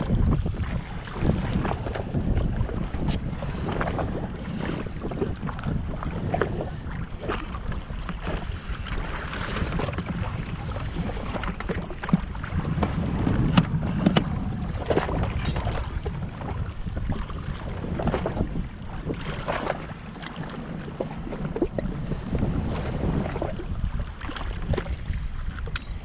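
Water slapping and splashing against a jetski's hull, with wind buffeting the microphone; many short sharp splashes over a steady rush.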